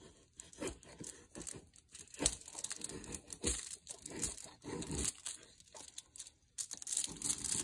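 Damascus steel blade of a Rough Ryder canoe pocket knife shaving curls off a wooden stick in repeated short, scraping strokes, with aluminium foil crinkling under the hands and falling shavings.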